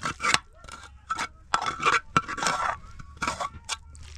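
Metal spoon scraping tomato sauce out of a metal pan onto spaghetti in an aluminium pot, with a run of irregular scrapes and clinks against the metal, busiest in the middle.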